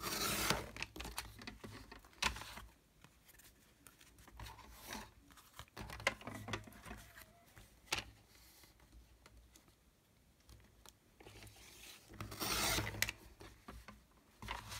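Paper being trimmed on a sliding-blade paper cutter: a few cutting strokes of the blade along the paper's edge, one right at the start, a short one about two seconds in and the longest near the end, with small clicks and paper handling between.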